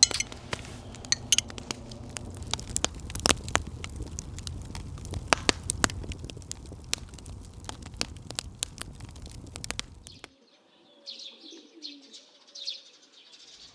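Campfire crackling with many sharp pops. About ten seconds in it cuts off suddenly, giving way to birds chirping.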